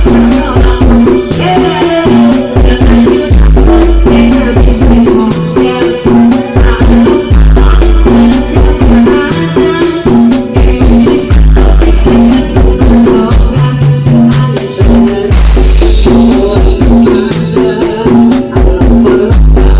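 DJ dance music played very loud through a large carnival sound system, with heavy deep bass and a steady beat.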